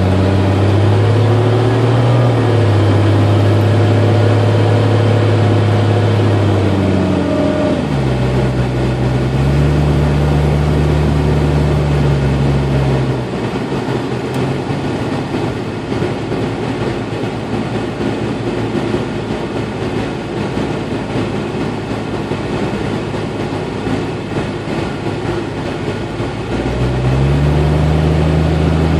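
1992 Jeep Cherokee running with the A/C on, with a loud low whining drone that comes and goes: it sounds for the first dozen or so seconds, shifting pitch partway, drops out to leave the plainer engine sound, then returns near the end. The uploader traced this intermittent A/C noise to an overcharged system, liquid refrigerant entering the compressor.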